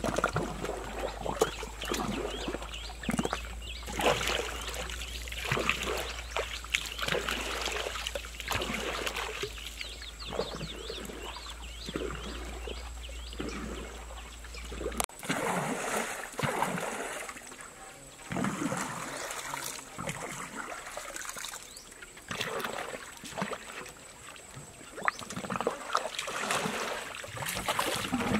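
River water splashing and sloshing in irregular strokes as a bamboo boat is paddled and poled along, with water trickling over the bamboo deck.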